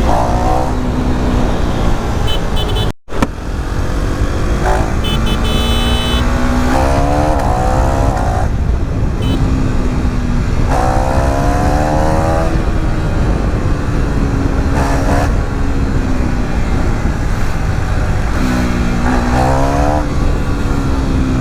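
KTM Duke 390's single-cylinder engine under hard acceleration, its note rising and then dropping several times as it pulls through the gears, over a steady rumble of wind. The sound cuts out for a moment about three seconds in.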